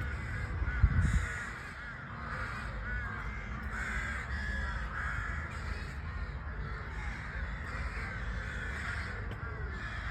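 A dense chorus of many birds calling at once, a steady overlapping chatter of short calls. A low rumble with a thump about a second in.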